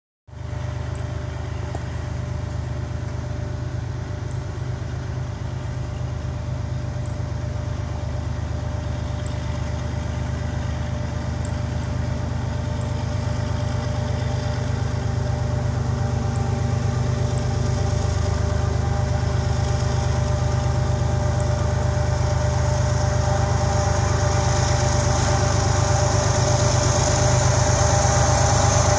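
Union Pacific diesel freight locomotives approaching: a steady low engine rumble that grows gradually louder as the train draws near.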